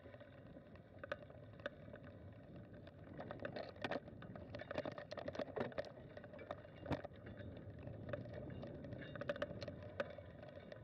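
Bicycle rolling over a rough, leaf-strewn dirt trail, with a steady rumble and frequent irregular rattles and clicks from the bike.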